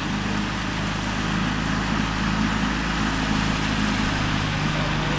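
An engine running steadily at an even speed, a constant low hum with a wash of noise over it.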